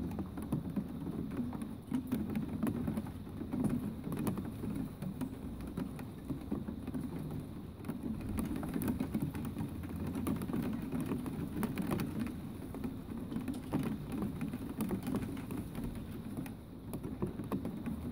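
Steady rain falling, with many separate drops ticking on a hard surface.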